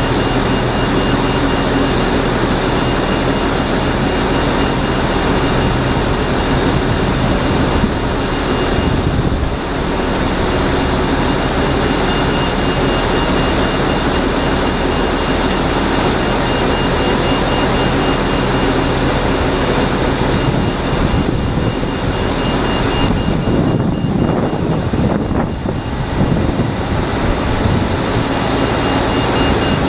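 Steady, loud ramp noise: a Kalmar TBL190 pushback tug idling with an Airbus A330's nose gear in its cradle, under a jet-like aircraft whine. A thin, fast-pulsing high tone runs through it.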